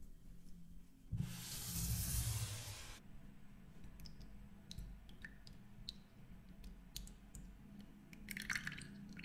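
Fresh cream poured from a carton into a glass bowl: a soft rushing splash for about two seconds that stops abruptly, then a quieter trickle with light clicks and drips, and a few sharper clicks near the end.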